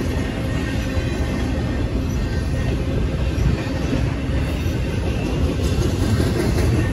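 Double-stack intermodal freight cars rolling past at a grade crossing: a steady rumble and rattle of steel wheels on the rails.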